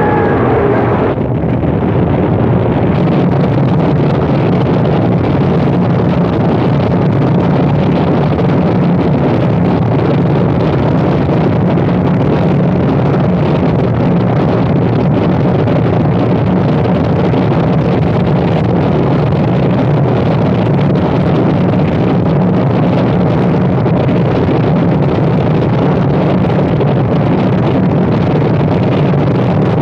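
Harsh noise music: a loud, dense, unbroken wall of distorted static and rumble, heaviest in the low range. A higher pitched tone and the top-end hiss drop away about a second in, and the wall then runs on without a break.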